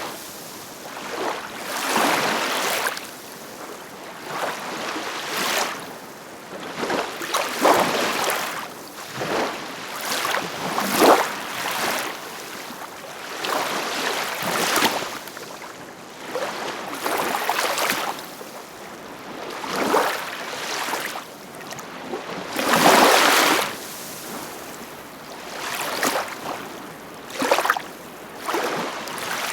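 Ocean waves breaking and washing in, one surge of hiss after another every second or two, with one larger surge late on.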